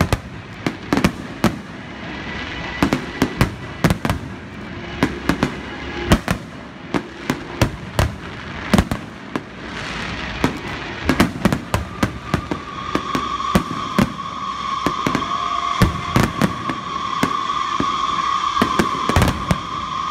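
Aerial fireworks shells bursting in a dense barrage, sharp bangs coming irregularly a few times a second. From about twelve seconds in a steady high tone sounds alongside the bangs.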